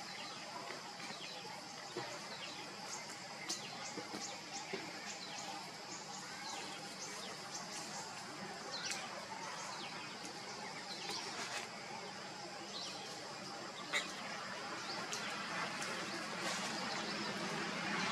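Outdoor ambience: many short, high, falling chirps from small animals over a steady high-pitched drone, with a few sharp clicks.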